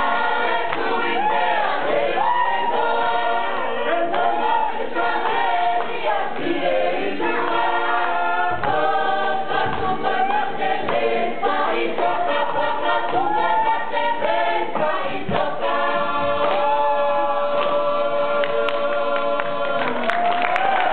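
A Tongan church choir of women and men singing together in parts.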